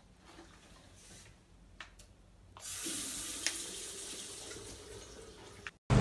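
Tap water running into a bathroom washbasin: a steady hiss that starts a little under three seconds in, after a few faint clicks.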